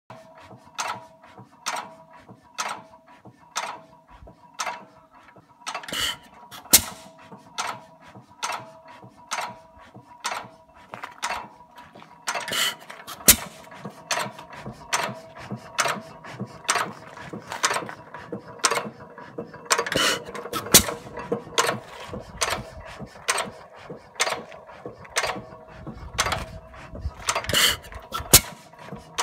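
7 hp Monitor upright hit-and-miss engine running on its first run after years of sitting idle. A steady clicking at about one and a half to two a second is broken by a louder pair of bangs every six or seven seconds.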